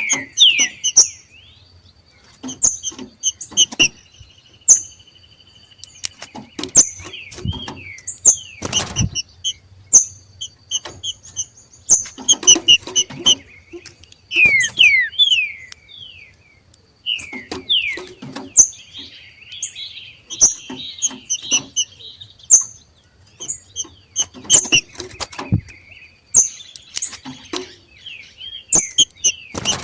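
Green-winged saltators (trinca-ferro) giving their rapid 'macheado' chatter: clusters of short chirps and quick downward-slurred notes mixed with sharp clicks. This excited call is typical of birds coming into breeding condition.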